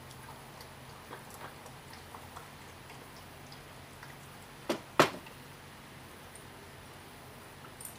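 Faint clicks of small carburetor parts being handled, then two sharp knocks close together about halfway through, the second the loudest: a screwdriver set down in a metal parts tray.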